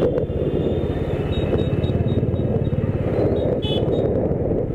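Vehicle engine running steadily while on the move, a dense low drone. A brief high-pitched beep sounds about three and a half seconds in.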